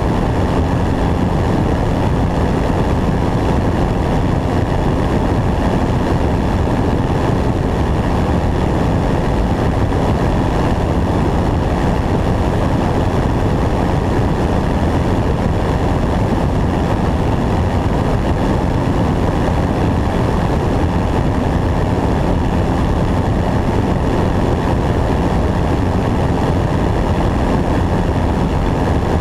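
Steady drone of a light propeller airplane's engine and propeller in flight, heard through a camera mounted on the wing.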